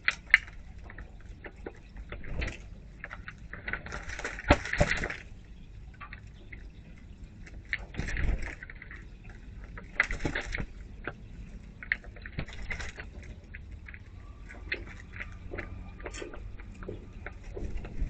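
Short bursts of water splashing and sloshing, about one every two seconds, the strongest around four to five seconds in, with a sharp click just after the start.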